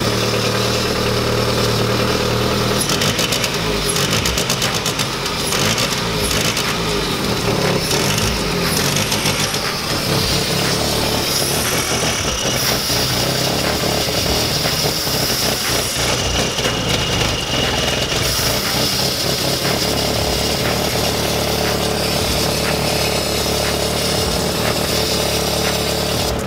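VW Lupo's swapped-in 1.8-litre turbo four-cylinder engine running with a fast, rattly pulse, a sign of defective fuel injectors.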